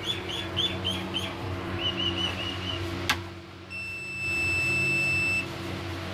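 A sharp click, then the HE tech home UPS's buzzer sounds one steady high beep for about a second and a half before cutting off, over a low electrical hum.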